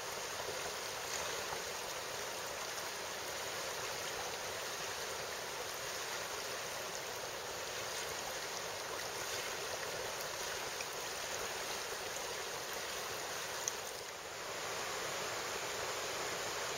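River water rushing over a shallow riffle: a steady, even wash with a brief dip near the end.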